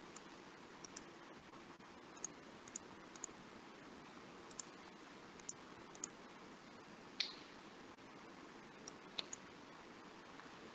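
Faint scattered clicks, about a dozen, over a steady low hiss; the sharpest click comes about seven seconds in and another about nine seconds in.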